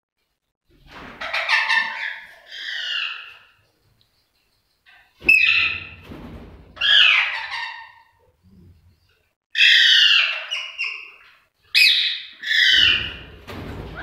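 Lovebirds calling: about six loud bursts of squawking calls, with short pauses between them.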